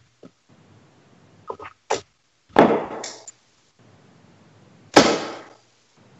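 Two steel-tip darts hitting a Winmau Blade 5 bristle dartboard, about two and a half seconds apart, each a sharp hit that fades quickly. A few lighter clicks come shortly before the first hit.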